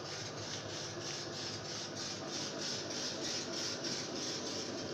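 VOIERN 4060 50 W CO2 laser cutter at work: a steady whir with a rhythmic back-and-forth sweep about four times a second, like the laser head shuttling on its gantry.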